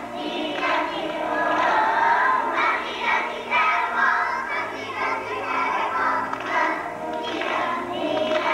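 A group of first-grade children singing together in chorus over a musical accompaniment with a steady bass line.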